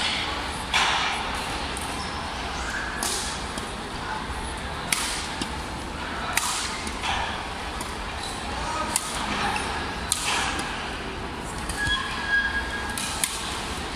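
Badminton rackets striking a shuttlecock during a rally: sharp hits at uneven intervals of one to two seconds, echoing in a large hall.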